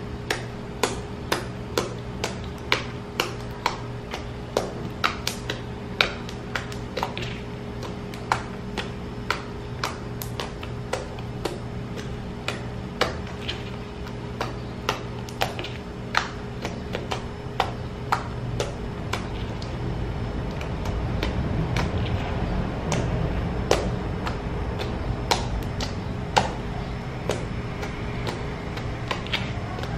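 Homemade bar-soap and toothpaste slime being pressed and kneaded with the fingers, giving sharp clicks as air trapped in it pops out, irregular, about one or two a second.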